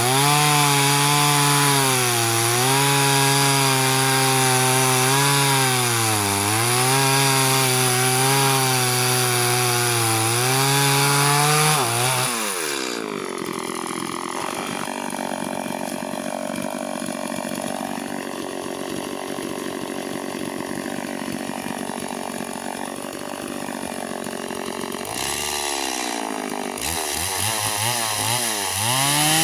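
Two-stroke chainsaw cutting into a tree stump at high revs, its pitch sagging under load every couple of seconds. About twelve seconds in the engine winds down to a quieter idle. Near the end it revs up again to cut.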